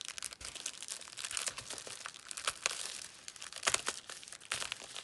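Plastic bubble-wrap bag crinkling and crackling as hands handle it and pull it open, a dense run of small crackles.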